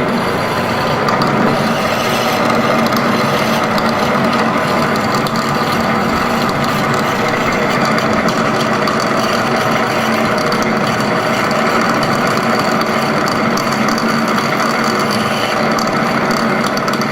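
Metal lathe running steadily, its gears and drive giving a dense, even mechanical clatter.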